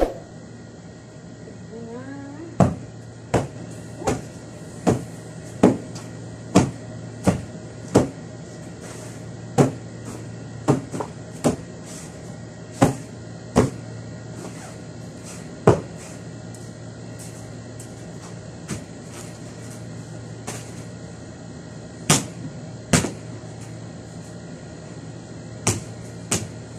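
Sharp slaps of a cloth beating dust out of upholstered sofa cushions, about one every three-quarters of a second, pausing for several seconds midway before resuming. A steady low hum runs underneath.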